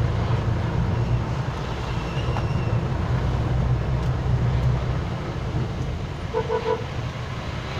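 Interior of a jeepney on the move: a steady low diesel engine rumble under a hiss of rain and road noise, with two short horn beeps near the end.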